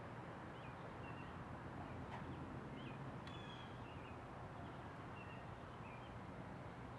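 Faint short bird chirps, about a dozen scattered through, over a steady low background hum, with two sharp clicks about two and three seconds in.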